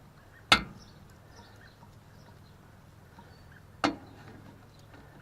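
Two sharp clicks about three and a half seconds apart from a hand grease gun being pumped into a hay rake's grease fitting, before fresh grease has pushed through. A faint steady low hum sits underneath.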